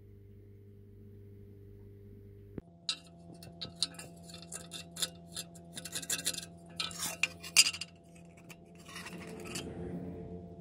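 Fingers scratching and picking at flaking rust on a steel garden trowel blade and shifting it on a metal bench top. A run of small scrapes, clicks and clinks starts about a quarter of the way in, over a steady low hum.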